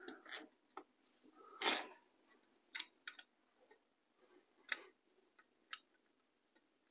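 Faint, scattered clicks and taps of a plasma machine torch being fitted by hand into the floating-head holder of a CNC plasma table, with one sharper knock just under two seconds in.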